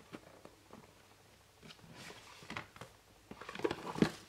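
An oracle card deck being handled in its cardboard box: quiet at first, then scattered soft rustles and taps, and a few sharper knocks and scrapes near the end as the deck is lifted out of the box.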